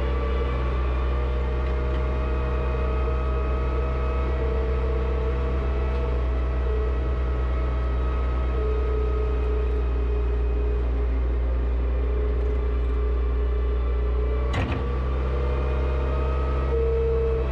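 Front-loader tractor engine running steadily: a low hum with a higher, slightly wavering whine over it. A single brief click about three-quarters of the way through.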